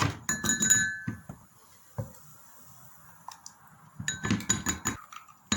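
Glass and metal kitchenware clinking while blended onion water is strained: a quick run of clinks with a brief ring in the first second, a single knock about two seconds in, then more clinks near the end.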